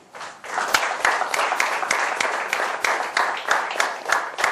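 Audience applauding: many people clapping at once, starting just after the beginning and going on steadily.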